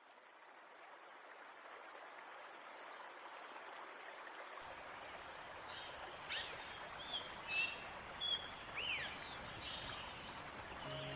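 Forest ambience fading in: a steady rush of flowing water, joined from about five seconds in by birds chirping in short calls, several of them falling in pitch.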